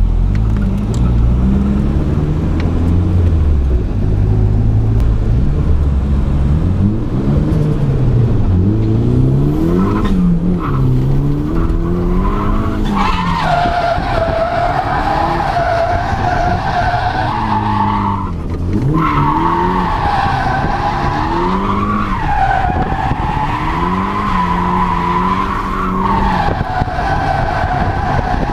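Nissan S13's turbocharged SR20DE four-cylinder revving up and down through a drift, heard from inside the cabin. From about halfway in, the tyres squeal loudly in a wavering howl as the car slides, breaking off briefly about two-thirds through.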